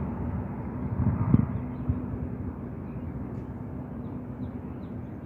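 Outdoor field recording: a steady low hum under rumbling wind buffeting on the microphone, with a louder gust about a second in and a few faint high chirps later.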